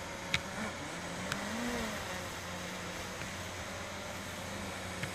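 DJI Mavic Pro Platinum quadcopter hovering and manoeuvring, its propellers humming steadily with small shifts in pitch as the motors adjust, over a hiss of wind. Two faint clicks in the first second and a half.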